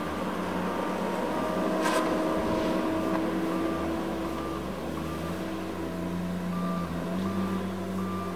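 Tigercat LX870C feller buncher's diesel engine running steadily while its travel alarm beeps over and over as the tracked machine swings and moves. A single sharp knock comes about two seconds in, and the engine note steps up a little near the end.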